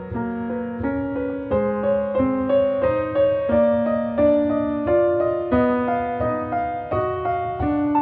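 Background music: a soft piano melody with notes changing in a steady rhythm.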